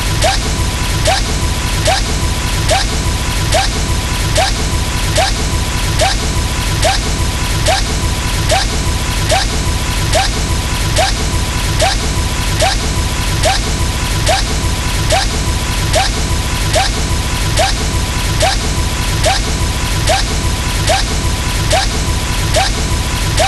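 A short smash-like sound effect looped over and over, repeating about every 0.8 seconds. Each repeat carries a quick rising squeak, over a steady high tone and a constant low rumble.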